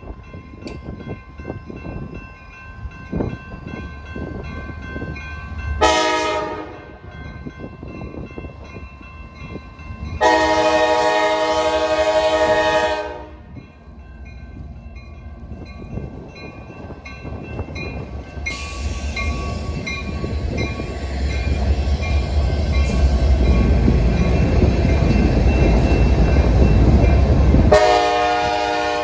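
Freight locomotive horn on a CSX intermodal train: a short blast about six seconds in, a long blast a few seconds later, and another blast starting just before the end. Under it a grade-crossing bell rings steadily and wind buffets the microphone. The locomotives' rumble grows louder in the second half as they pass close by.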